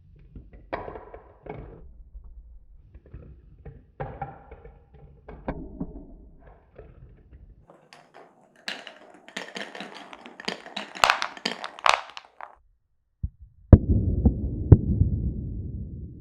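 Glass marbles rolling and clattering along a wooden marble run: scattered light taps first, then a spell of quick, sharp clacks in the middle, and a low rolling rumble with clicks near the end as a marble runs down a wooden track.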